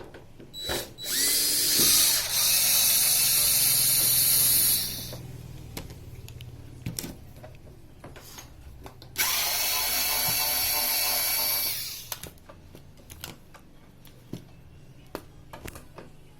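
Cordless power drill or electric screwdriver whirring in two runs, about four seconds and then about three seconds long, with small clicks and knocks of handled screws and tools between and after, as screws are driven out of a flat-screen TV's casing.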